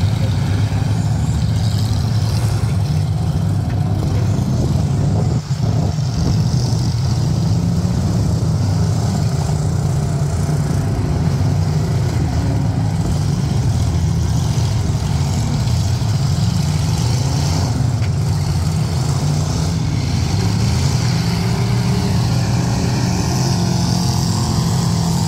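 Engines of several demolition derby cars running and revving together in a steady, loud din.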